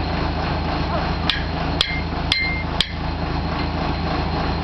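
Four sharp metal-on-metal strikes at the drill rig's auger string, about half a second apart, a couple of them ringing briefly, over the rig's engine running steadily.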